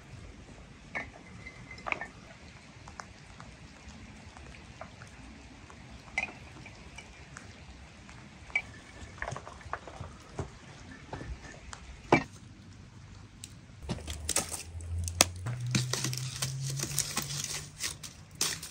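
Glass jars and bottles clinking now and then as they are handled and filled with pomegranate seeds and quince slices. Near the end, a louder stretch of crackling and hissing as a wood fire is poked with a stick.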